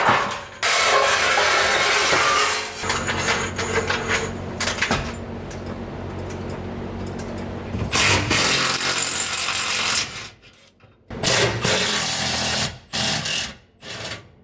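Handheld power tool run in several bursts of one to three seconds each, with sharp knocks and clicks of tool work near the end.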